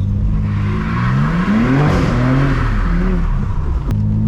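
Car engine accelerating, its pitch climbing to a peak about two seconds in and then dropping back as the throttle eases off.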